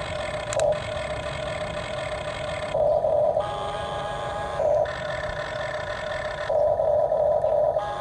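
Small electric gear motors of a toy RC excavator whirring in repeated short bursts, about five times, over a steady motor hum.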